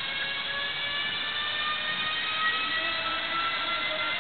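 Prague metro 81-71M train set rolling slowly past on a railway track, its running gear giving a steady whine of several tones that rises slowly in pitch as it moves.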